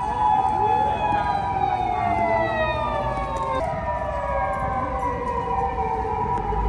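Japanese emergency vehicle sirens. A wailing siren falls slowly in pitch, jumps back up about three and a half seconds in, and falls again, over a steady higher siren tone.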